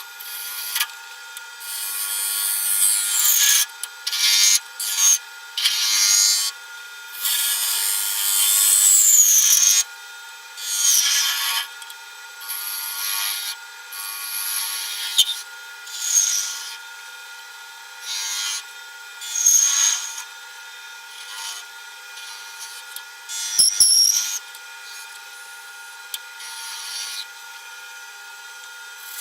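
Wood lathe spinning a wooden bowl, with a tool pressed to the turning wood in repeated strokes of one to two seconds, each a harsh scraping hiss. A steady motor whine from the lathe runs underneath, and there is a brief knock about three-quarters of the way through.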